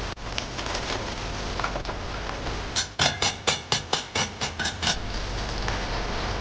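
About ten quick, evenly spaced knocks of a kitchen utensil, roughly five a second for two seconds, over a steady background hiss.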